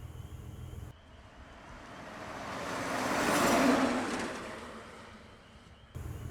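A vehicle passing by: a rushing noise that builds to a peak about halfway through and then fades away. A steady low car-interior rumble comes just before it.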